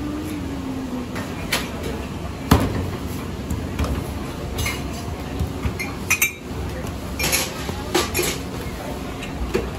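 Roti canai dough being slapped and worked by hand on a steel counter, with one sharp slap about two and a half seconds in, then scattered knocks and metal clinks over steady kitchen background noise.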